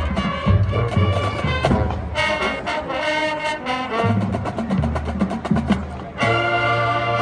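High school marching band playing: brass section in short punchy chords over the drumline, then a held brass chord starting about six seconds in.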